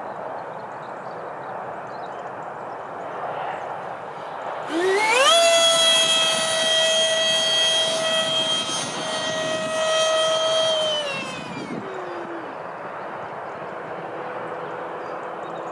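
Electric ducted fan of a Freewing Eurofighter RC jet: a whine with many overtones climbs quickly about five seconds in as the throttle opens, holds a steady high pitch for several seconds, then slides down near the end as it is throttled back. A steady rushing noise sits under it throughout.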